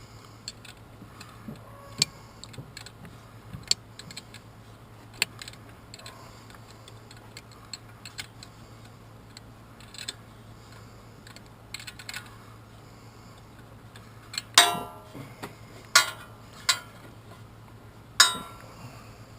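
Hand tools working on metal ATV engine parts: scattered light clicks and taps, then a few louder metallic clanks with a short ring near the end, over a faint steady low hum.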